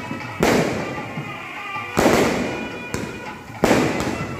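Aerial fireworks bursting in quick succession: three loud booms about a second and a half apart, each trailing off in a long fading rumble, with a smaller bang between the last two.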